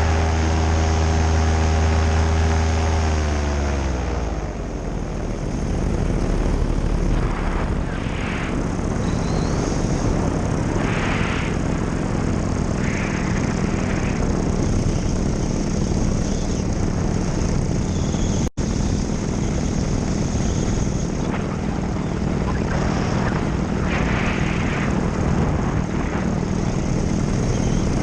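Nitro 200 two-stroke paramotor engine running steadily, then throttled back about three seconds in, its pitch falling. After that, wind rushes loudly over the microphone while the engine runs at low throttle underneath.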